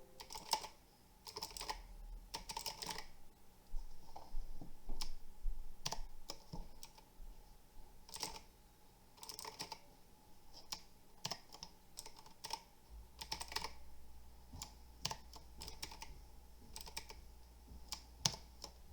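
Keys on a Pictek tenkeyless RGB mechanical keyboard being pressed: irregular clicks, some single and some in short quick runs.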